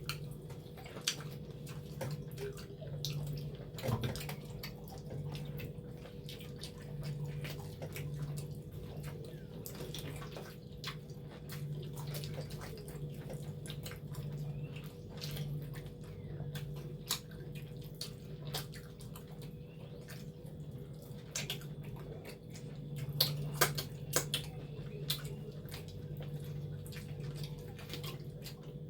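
Wet chewing and lip-smacking while eating spicy cow leg: many short irregular clicks and smacks, over a steady low hum.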